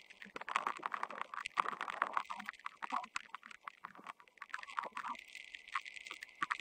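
Many rapid, irregular clicks and knocks, thicker in the first half, typical of the ambient sound of a field hockey match.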